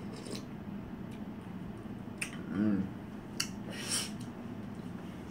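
A person eating a spoonful of shaved ice: a few small, sharp clicks and smacks from the mouth and spoon, with a short hummed "mm" about halfway through.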